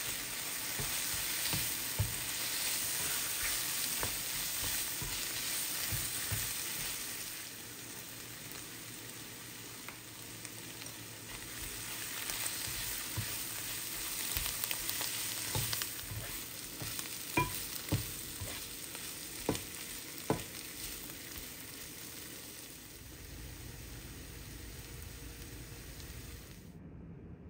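Baby bella mushrooms sizzling in butter and sauce in a nonstick frying pan, stirred with a slotted spatula that knocks and scrapes against the pan now and then. The sizzle cuts off just before the end.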